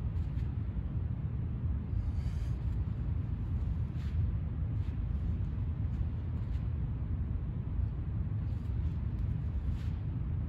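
Steady low background rumble with a few faint soft taps scattered through it.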